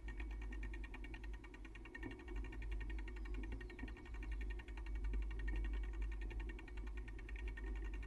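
Bicycle freewheel hub ticking rapidly and evenly, about ten clicks a second, as the bike coasts along a dirt trail, over a low rumble from wind and trail bumps on the camera.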